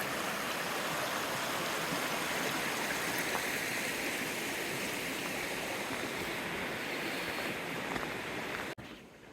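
Rushing stream water, a steady hiss of flowing water that cuts off abruptly near the end.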